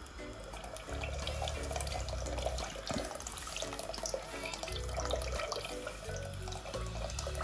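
Coconut milk being poured from a can into a pot, a steady run of liquid, over background music with a repeating bass line.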